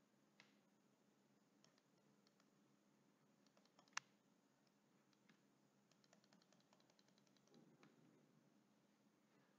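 Near silence with faint clicks of a stylus tapping on a tablet screen during handwriting: one sharper click about four seconds in, then a quick run of light taps as a dashed line is drawn.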